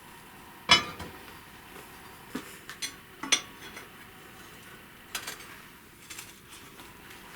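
Metal parts being handled and set down on a workbench: one loud metallic clank with a short ring under a second in, then a scatter of lighter clinks and knocks.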